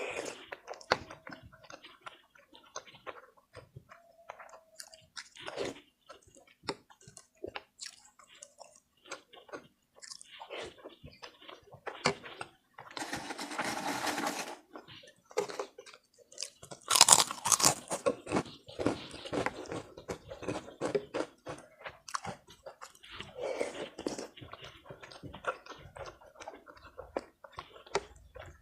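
Close-up eating sounds: a person chewing and biting ketupat rice cake, opor chicken and fried potato, with wet mouth clicks and smacks throughout. There are two longer, louder noisy stretches, one about halfway through and one around two thirds of the way.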